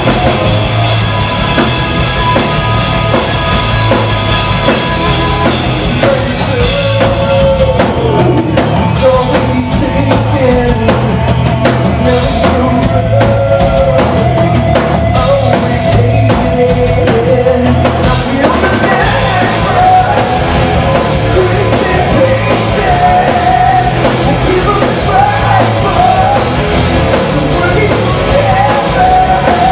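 Live rock band playing loud: electric guitars, bass and a drum kit keeping a steady beat, with a lead singer's voice over them from a few seconds in.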